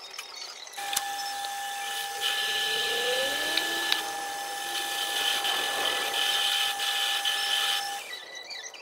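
Metal lathe starting up about a second in and running, its cutting tool turning a steel differential part; a steady high whine with a hiss over it, dropping away near the end.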